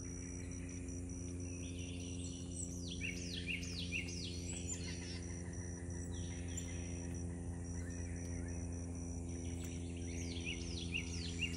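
Small songbirds calling in short bursts of quick downward-slurred chirps, about three seconds in, around five seconds, and again near the end. Under them run a steady, pulsing high insect note and a low steady hum.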